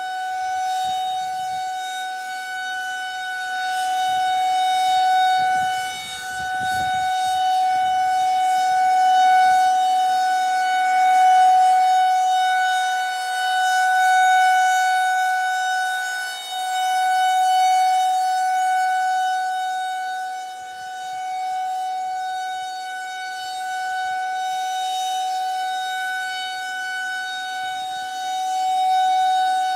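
Federal Signal 2001-130 rotating electromechanical outdoor warning siren sounding a steady, unwavering tone, the alert signal. Its loudness swells and fades every few seconds as the rotating head sweeps past.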